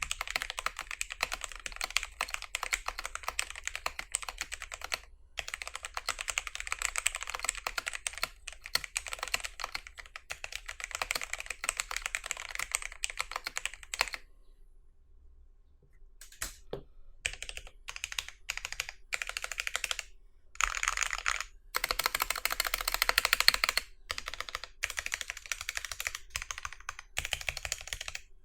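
Typing on an Akko ACR67 mechanical keyboard with lubed Akko CS Jelly Pink linear switches, PE and plate foam and a tape mod: a steady stream of keystrokes for about fourteen seconds, a short pause with a few lone key clicks, then fast bursts of typing with breaks, the loudest just past the twenty-second mark.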